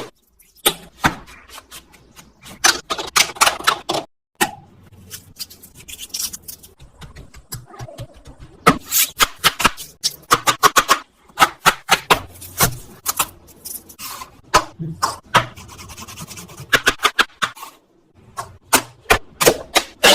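Cooking utensils clicking and knocking irregularly in a kitchen, in several short cut-together stretches.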